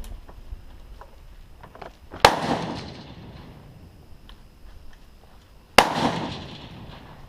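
Two rifle shots about three and a half seconds apart, each a sharp crack followed by a long rolling echo that dies away.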